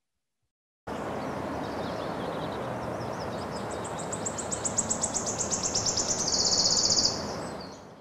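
Wood warbler singing: a run of high notes that speeds up into a fast, loud trill like a coin spinning, then fades, over a steady background hiss. It starts about a second in, after a brief silence.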